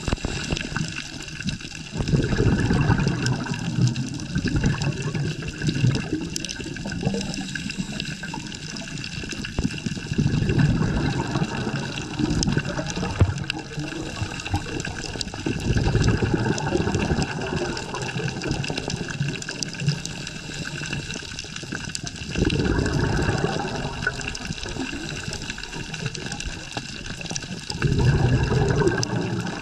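Underwater recording of a scuba diver's exhaled bubbles gurgling in bursts about every six seconds, over a steady hiss of water with faint high tones underneath.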